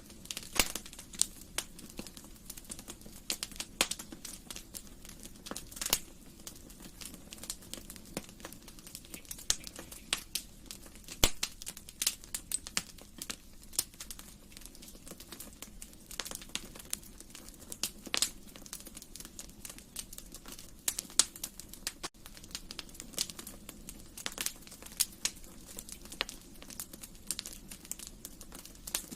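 Wood fire crackling: irregular sharp pops and snaps of burning logs over a low steady hiss of the flames.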